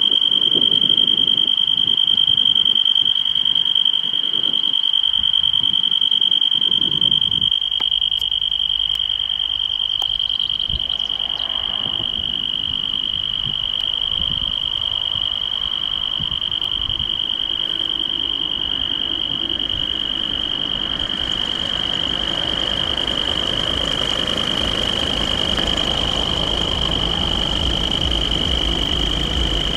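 Level crossing warning signal sounding a steady, high-pitched electronic tone. From about twenty seconds in, the rumble of an approaching passenger train grows louder beneath it.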